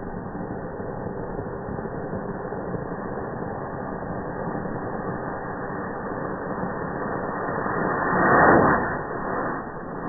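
Ground firework fountain spewing sparks with a steady rushing hiss, swelling to its loudest about eight seconds in.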